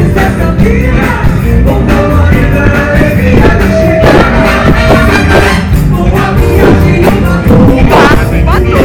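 Live funk band playing a loud, driving groove on drums and bass, with a voice singing at times.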